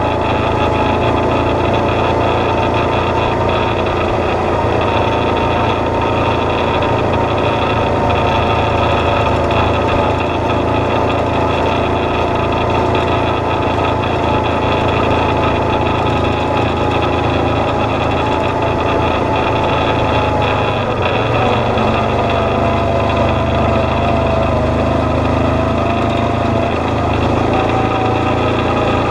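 Vehicle engine running steadily while driving slowly along a dirt trail, its pitch dropping a little about two-thirds of the way through.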